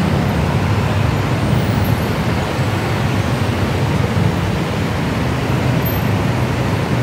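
Steady low rumble of heavy road traffic: cars, motorcycles and trucks on a busy multi-lane city road.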